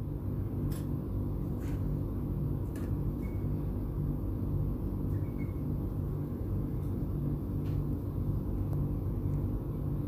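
A steady low rumbling hum with a slow pulsing beat, a few faint clicks over it.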